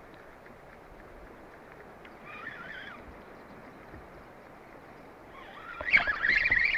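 Birds calling: a short wavering call about two seconds in, then louder, overlapping calls with bending pitch starting about five and a half seconds in.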